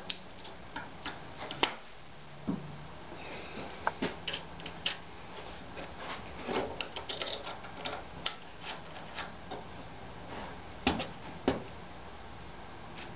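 Irregular light metallic clicks and taps from a hex key turning bolts and from handling the aluminium extrusion as it is fastened to the frame, with two sharper clicks close together near the end.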